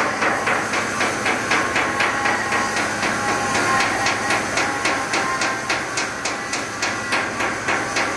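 Rhythmic metallic knocking, very even at about three knocks a second, over a steady machinery hum with a few faint whining tones, heard aboard a ferry.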